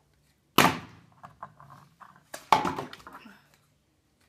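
Partly filled plastic water bottles flipped onto a wooden floor: two sharp thuds as they hit, about half a second and two and a half seconds in, with lighter knocks between and after.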